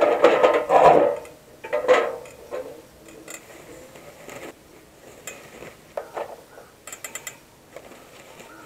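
Charcoal briquettes dropped by the handful into a small black metal portable grill, clattering and knocking on the metal tray. The loudest clatters come in the first second and again at about two seconds, followed by scattered lighter knocks as more briquettes are added.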